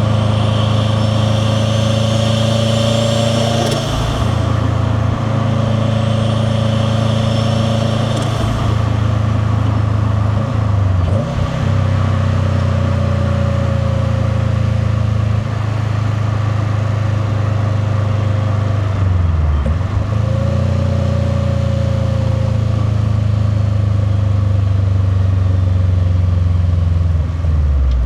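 Turbocharged flat-four boxer engine of a 2001 WRX STi, with a VF48 turbo and a titanium catback exhaust, accelerating. A rising turbo whistle runs over the exhaust rumble through two pulls, broken at gear changes about four and eight seconds in. The car then runs more steadily, with further short breaks at shifts.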